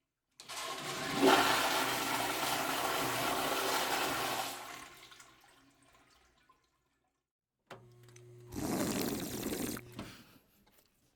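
A loud rush of running water lasting about five seconds and then tailing off. After a pause there is a click, a steady low hum, and a second, shorter rush of water of about a second and a half.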